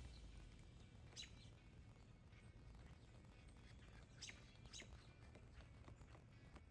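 Near silence with a few faint bird chirps: one about a second in and two close together around four to five seconds in, over a low steady background rumble.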